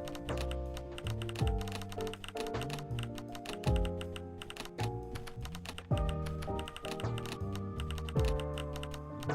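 Background music with held chords and a deep beat about every two seconds, with rapid clicking like keyboard typing throughout.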